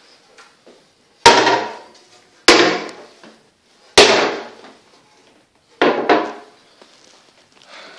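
Wooden vanity cabinet doors being pushed shut, four sharp knocks over about five seconds, each ringing briefly.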